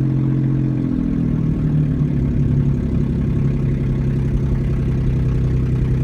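2011 Nissan Xterra under way with a loud, low droning noise, like a very loud motorcycle crossed with a propeller. The drone steps up in pitch briefly about a second and a half in, then holds steady. The noise began after shifting into overdrive and accelerating on the highway, and it hurts the truck's acceleration.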